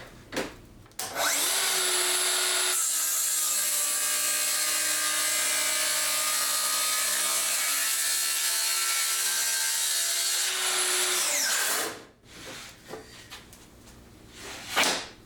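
Festool HKC 55 cordless track saw spinning up about a second in and cutting through wood for several seconds, the motor note heavier while the blade is in the cut, then winding down. A few handling clicks come before it and once near the end.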